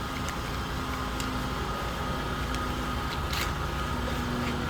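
Engine of a pavement saw running steadily with an even hum.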